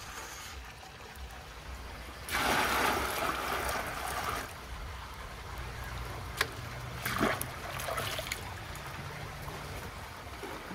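Hot sheep's milk poured from a stainless steel bowl, splashing for about two seconds, then dribbling and trickling off the bowl's rim, with a couple of light metal knocks about six and seven seconds in.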